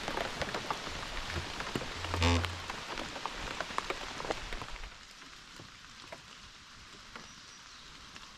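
Rain falling, with many small sharp ticks of drops striking. There is a short louder thud about two seconds in, and the rain sound grows quieter about five seconds in.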